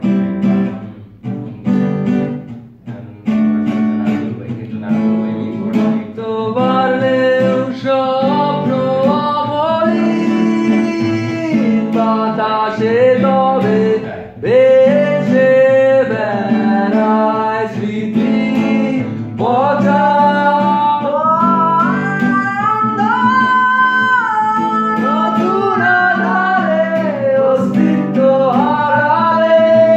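Acoustic guitar strummed with chords while a male voice sings a melody, the singing coming in about seven seconds in.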